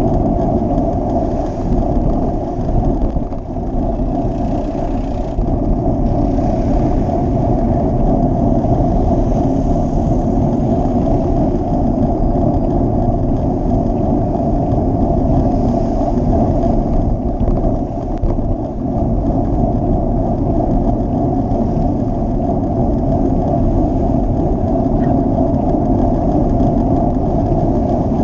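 Steady traffic and riding noise while passing close alongside queues of slow-moving cars: a continuous low rush with car engines running nearby.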